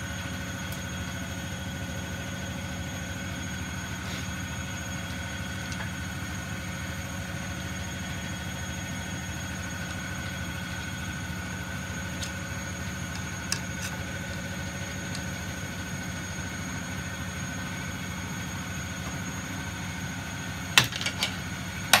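A steady machine hum with a few steady tones in it. Near the end come a couple of sharp clicks as a plastic drain-pump housing clamped in a vise is levered apart with a screwdriver.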